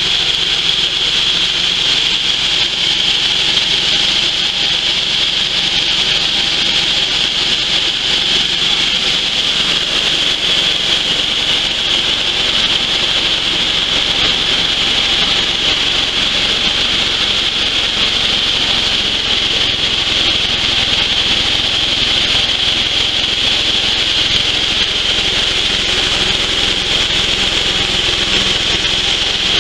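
Dry coffee huller running while it strips the husk from dried coffee beans: a steady, unbroken grinding and rushing noise with a strong high hiss.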